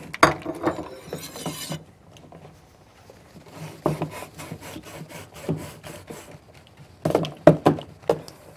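Rhythmic scraping strokes of a kitchen utensil working in a bowl or on a grater, with a few louder knocks about seven seconds in.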